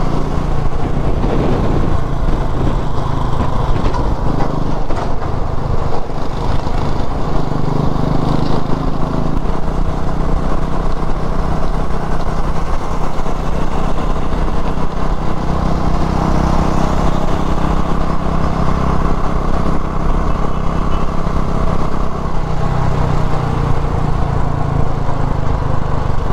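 Motorcycle engine running at highway cruising speed, a steady low drone with road noise, its pitch shifting a few times as the throttle changes.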